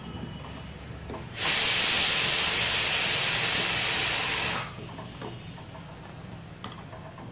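Pressure cooker whistle venting steam: a loud, even hiss that starts about a second and a half in and cuts off after about three seconds. The cooker has reached full pressure and is letting off steam through its whistle weight.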